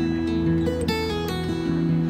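Background music of acoustic guitar, notes plucked one after another and left ringing.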